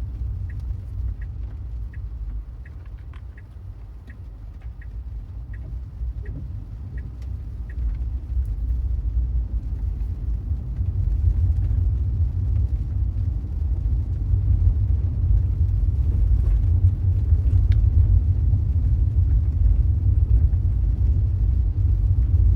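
Low road and tyre rumble inside an electric Tesla's cabin, growing louder about halfway through as the car picks up speed. During the first several seconds a turn signal ticks steadily as the car makes a left turn.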